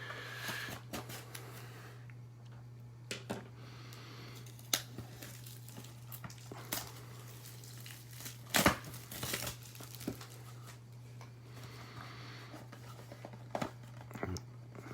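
Trading-card pack wrapper crinkling and tearing as the pack is opened, with scattered taps and clicks of card handling. A steady low electrical hum sits underneath.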